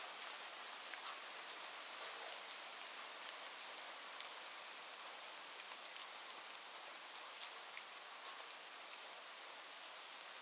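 Steady rain, an even hiss with many small sharp ticks scattered through it.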